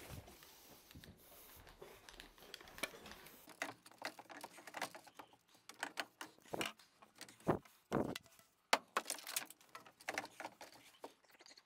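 Scattered light knocks and clatter of white PVC drain pipe and fittings being handled and fitted into place.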